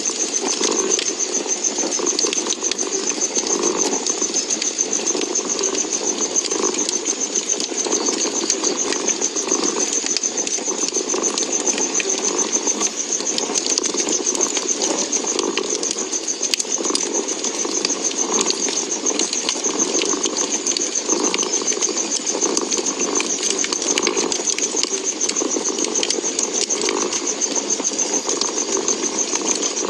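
Domestic cat purring, swelling and fading with each breath about every second or so, over a wood fire crackling with many small pops and a steady hiss.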